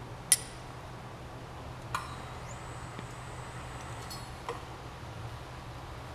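Sharp metal clinks from handling steel hoist rigging and a hand tool on the pump bowl assembly. There is one loud ringing clink near the start, a weaker one about two seconds in, and a faint one near the end, all over a steady low hum.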